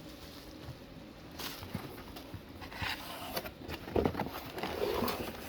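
Faint rustling and light knocks of a cardboard box and its packaging being handled, in a few short irregular bursts.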